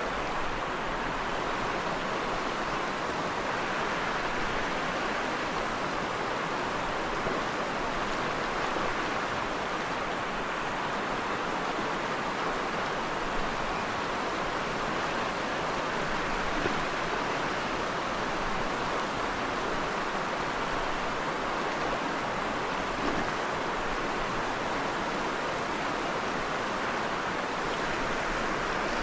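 Steady rushing of river water, an even hiss with no rhythm or pitch.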